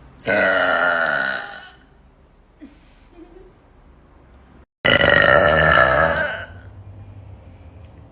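A woman burping loudly twice: two long belches of about a second and a half each, the second about three seconds after the first ends.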